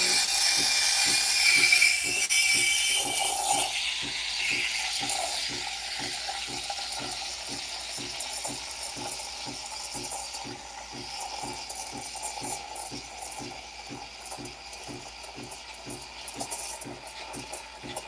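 Turin Legato espresso machine's steam wand steaming milk in a pitcher. The hiss is loud for the first three or four seconds, then settles to a quieter, steady hiss as the milk heats, with a low pulsing several times a second underneath.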